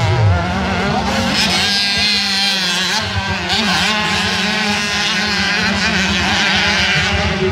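Several motocross dirt bikes racing, their engines revving up and down in overlapping high-pitched notes.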